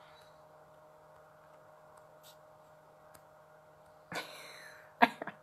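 Quiet room tone with a steady low hum and a few faint ticks. About four seconds in a short rustle, then a few sharp clicks and knocks a second later from fingers tapping and handling the phone that is streaming.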